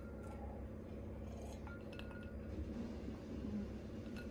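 A few faint, light clinks of a glass tumbler being handled, about a couple of seconds in, over a steady low room hum.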